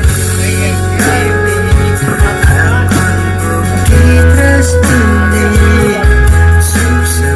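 Live band playing an instrumental passage through a PA: guitar over a loud bass line whose held low notes change every second or so, with no vocals.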